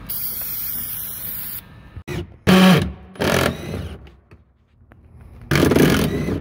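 Cordless 18V impact wrench running in short bursts on fender bolts: one burst about two seconds in and another near the end. It opens with a steady hiss from an aerosol penetrating spray.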